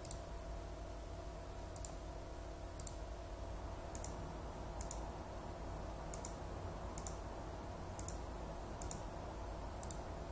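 Computer mouse clicking about once a second, about ten clicks in all, each click placing a point of a stitch shape, over a low steady hum.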